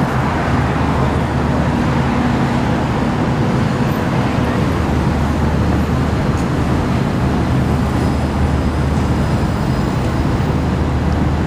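Steady road traffic noise with a continuous low engine hum.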